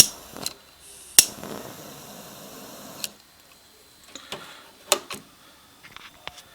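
Glock-pistol-shaped butane jet lighter being worked: sharp clicks of its trigger igniter, the loudest about a second in, followed by about two seconds of hissing jet flame that stops with a click. Then a scatter of smaller clicks and knocks from the trigger and plastic body.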